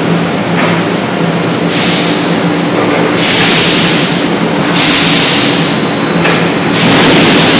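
Loud, steady forge-shop machinery noise: a constant low hum under a hiss that swells and falls back in several long surges, with no hammer blows.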